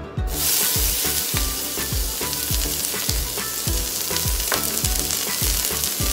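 Diced onion dropped into hot oil, starting to sizzle loudly a moment in and frying with a steady hiss. Background music with a steady beat underneath.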